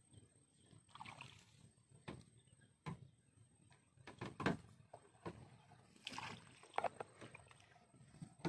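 Water slopping and slapping against a small boat's hull, with a few irregular knocks, one of them sharp about three seconds in.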